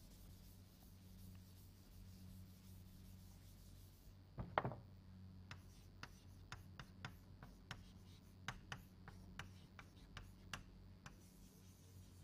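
Chalk on a blackboard: faint tapping and scratching strokes as words are written and underlined, starting with a sharper knock about four and a half seconds in, over a faint steady low hum.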